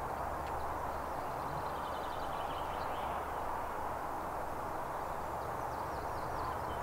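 Outdoor ambience: a steady background rush with faint bird calls, a run of short repeated chirps about two seconds in and a few more near the end.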